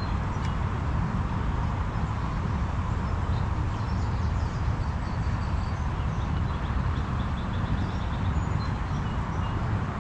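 Outdoor ambience: a steady low rumble with a few faint bird chirps high above it.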